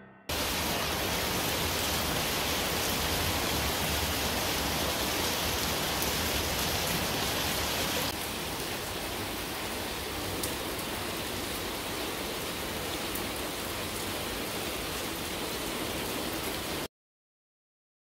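Steady monsoon rain falling, an even hiss that drops a little in level about eight seconds in and cuts off suddenly near the end.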